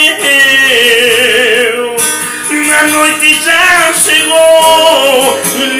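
A man singing a hymn in long held notes with vibrato, accompanied by a strummed acoustic guitar.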